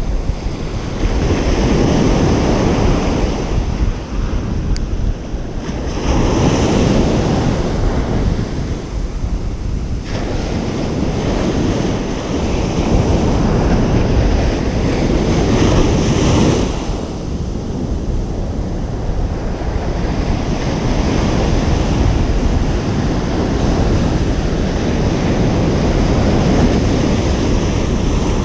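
Ocean waves breaking on a beach: a continuous low surf rumble with swells of louder breaking surf rising and falling every few seconds, and wind buffeting the microphone.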